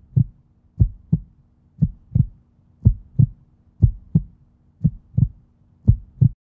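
Heartbeat sound effect: seven double thumps, about one a second, over a faint steady hum.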